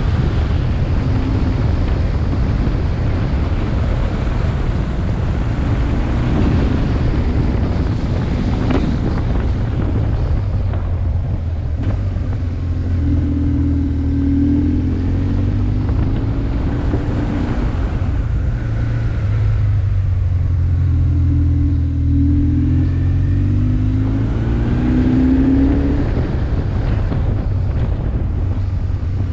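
Wind buffeting on a helmet-mounted camera at road speed, over the BMW R1150R's boxer-twin engine, whose note rises in pitch several times as it accelerates.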